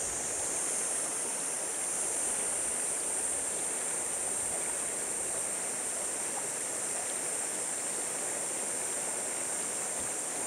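Fast, shallow river current rushing and splashing over a rocky riffle, a steady rush of water.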